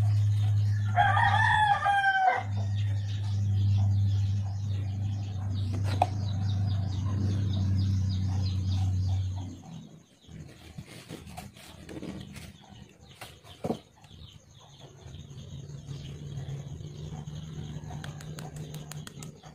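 A rooster crows once, about a second in, over a steady low hum that cuts out about halfway through. Near the end comes a quick run of small metallic clicks as pliers work the metal lure piece.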